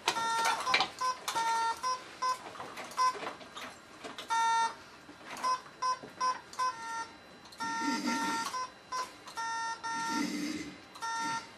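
Morse code beeps from a head-switch Morse input system as a message is typed: a fast, irregular string of short and long electronic tones at two pitches, the dots and dashes of the letters.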